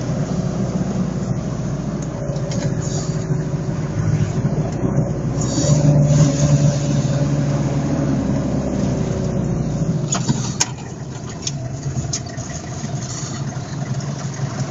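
Car engine and road noise heard from inside the cabin while driving, a steady drone with an engine note. About ten seconds in the deep rumble drops away and the sound gets a little quieter, with a few clicks.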